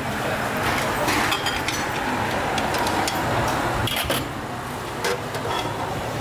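Road traffic passing, a vehicle's noise swelling and fading over the first few seconds, with scattered light clinks of dishes.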